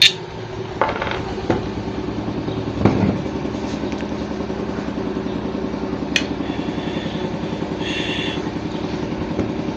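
A small engine or motor running steadily with a fast, even pulse, starting about a second in. A few light clicks and knocks sound over it.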